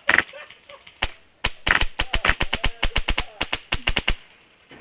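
Airsoft gun firing: a short burst at the start, a single shot about a second in, then a long fast string of shots, roughly nine a second, that stops near the end.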